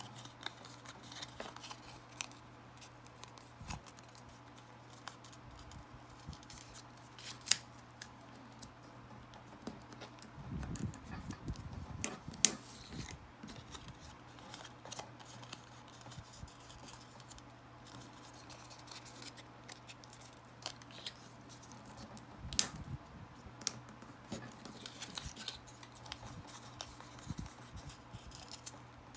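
Scored white cardstock being folded and creased by hand along its score lines: scattered paper rustles and crisp crackles, with a few sharper taps, over a faint steady low hum.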